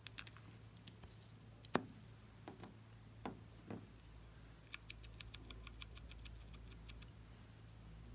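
Small plastic clicks and taps from handling a toy-topped novelty marker as its character cap comes off. There is one sharp click a little under two seconds in, then a quick run of light ticks.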